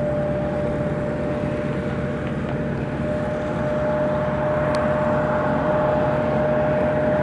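UH-60M Black Hawk's auxiliary power unit running with a steady high whine over a constant turbine rush, before engine start with the rotors still stopped.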